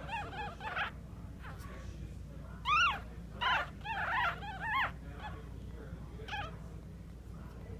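Newborn Maltese puppies squeaking: short, high, rising-and-falling cries, a few faint ones at first, then a cluster of louder ones in the middle and one more near the end, over a low steady hum.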